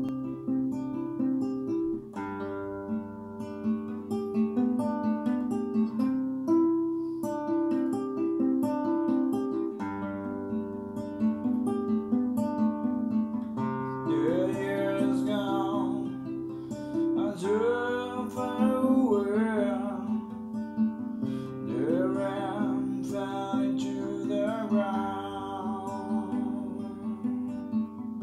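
Nylon-string classical guitar fingerpicked in a repeating arpeggio pattern, the chord changing every few seconds. About halfway through, a voice starts singing a ballad melody over it in phrases.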